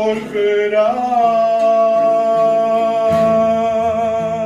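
Man singing a Spanish ballad to his own strummed acoustic guitar: a couple of short notes, then one long held note from about a second in, with a slight waver.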